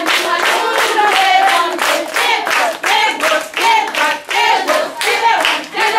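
A group of children singing together with rhythmic hand clapping, about three to four claps a second.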